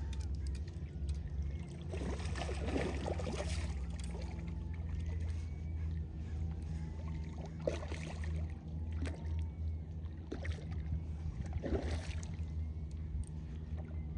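A hooked salmon splashing and thrashing at the water's surface several times while it is played on a fly rod, over a steady low drone.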